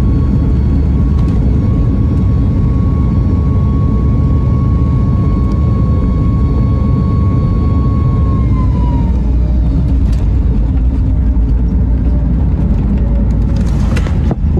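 Boeing 737 turbofan engine running at takeoff power, heard from the cabin as a loud, steady rumble with a steady whine during the takeoff roll. About eight seconds in the whine falls in pitch as thrust is pulled back to reject the takeoff, while the rumble carries on.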